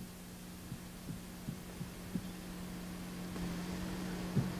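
Low steady hum, with a few faint dull thuds about half a second apart in the first couple of seconds and one more near the end.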